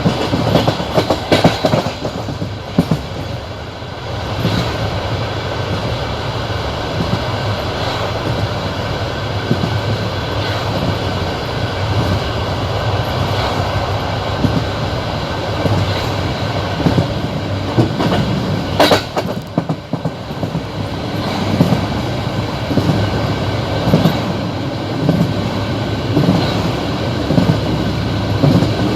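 Passenger train running along the line, its wheels knocking over the rail joints in a clickety-clack over a steady rumble. One sharp, loud clack comes about two-thirds of the way through.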